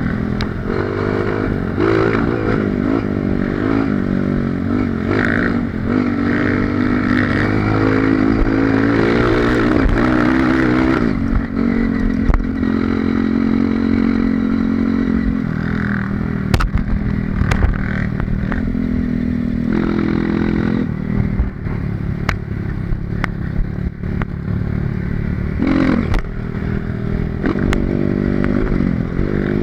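Dirt bike engine, a Honda CRF230 single-cylinder four-stroke, running under load on a trail, its pitch rising and falling over and over with the throttle. Scattered knocks and rattles over the engine.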